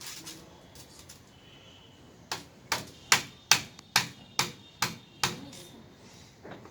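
About eight sharp, evenly spaced knocks, roughly two or three a second, as a UPVC pipe is knocked home into a tee fitting. A few faint clicks come before them.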